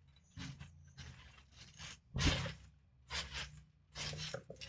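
A person's body thudding onto a trampoline mat about two seconds in, among several short scuffing, rustling noises of movement on the mat.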